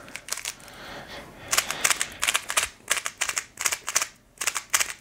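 Moyu YS3 M magnetic 3x3 speed cube being turned quickly in the hands, its plastic layers clacking in quick runs of sharp clicks, which start about a second and a half in. The cube is freshly lubricated and is being broken in.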